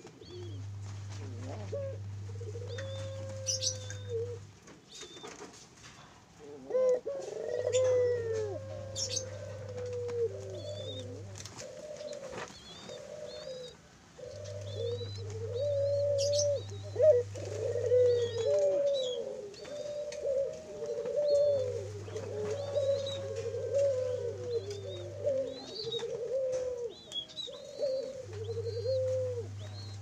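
Domestic Barbary doves cooing in low, repeated rolling coos. There are a few coos at first, then an almost unbroken run of them from about a quarter of the way in.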